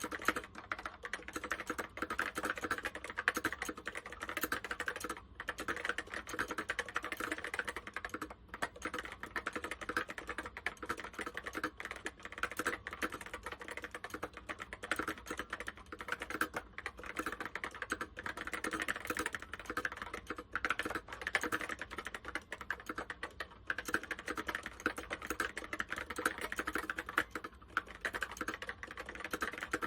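Continuous fast typing on an Apple M0110 keyboard with Alps SKCC Tall Cream switches: a dense clatter of keystrokes, with brief pauses about five and eight seconds in.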